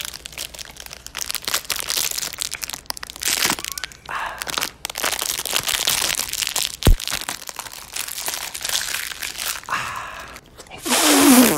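Plastic ice-pop wrapper crinkling and tearing as it is peeled open right against a phone microphone, with crunching bites into a frozen ice pop. Irregular crackles run throughout, with one sharp bump about two-thirds of the way in.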